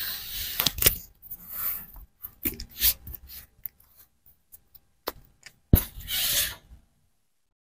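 Paperback books sliding and rubbing against one another and the metal shelf as a hand pushes them along, with scattered sharp taps and knocks. The loudest knock comes about two-thirds of the way through.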